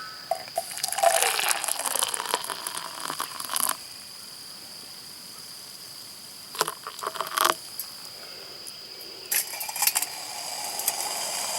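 Clinks, knocks and rustling from handling camp cooking gear, busiest in the first few seconds, with a few short clinks later on.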